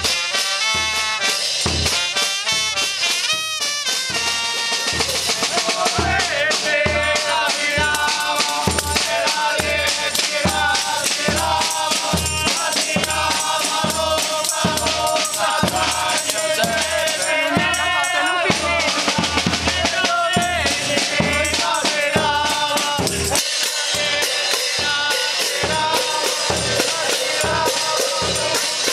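Street band of trumpets, trombone, bass drum, snare drum, hand cymbals and tambourines playing a tune over a steady drum beat.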